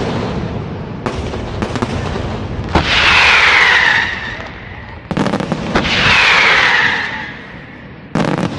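Aerial firework shells bursting with sharp reports. Three times there is a long, loud hissing swell with a falling whistle-like tone through it, each lasting a second or more.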